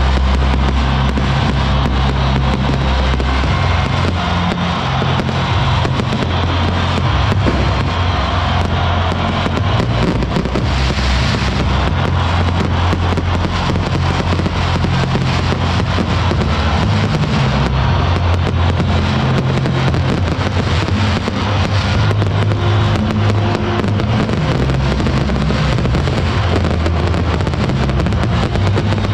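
Aerial fireworks crackling and popping without a break over loud, steady music.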